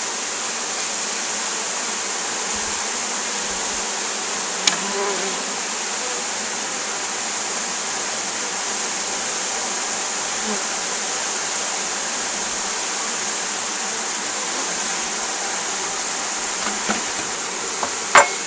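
Honeybees from a freshly installed package buzzing in a steady, dense hum around an open hive. A sharp knock comes about five seconds in and a louder one near the end.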